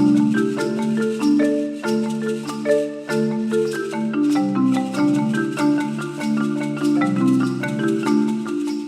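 Marimba music played live with mallets: quick runs of struck notes over sustained, rolled low notes.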